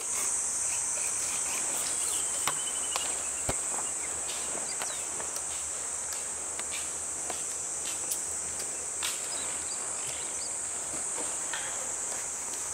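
A steady, high-pitched insect chorus runs unbroken, with a few scattered faint clicks and one sharper knock about three and a half seconds in.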